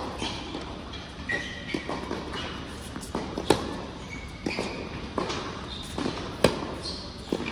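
Tennis rally on an indoor court: sharp racket strikes on the ball about three seconds apart, the loudest about halfway through and a second before the end, with softer ball bounces, footsteps and brief high shoe squeaks between.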